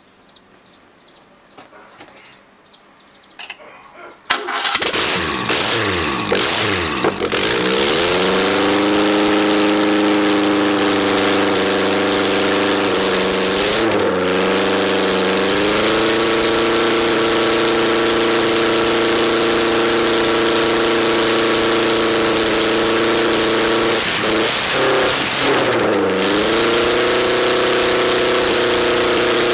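Ford 2.0 litre OHC Pinto inline-four on a test stand with open exhaust, firing up for the first time after a rebuild: it catches suddenly about four seconds in, runs fast at first, then settles to a steady, loud idle. Its speed dips and picks up again briefly twice.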